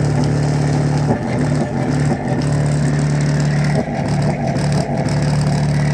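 Bass-heavy music through a 10-inch dual voice coil subwoofer driven by a 2N3055 transistor amplifier board: a loud, steady low bass note with a few brief breaks, the rest of the music barely heard over it.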